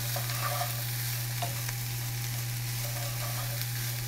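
Vegetables, corn and black beans sizzling in a nonstick skillet while being stirred, with a few soft scrapes of the utensil in the pan. A steady low hum runs underneath.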